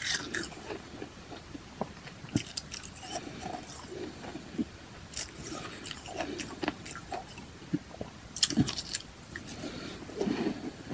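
Powdery ice chunks being bitten and chewed: crisp crunching that comes in a few short bursts, with softer chewing between them.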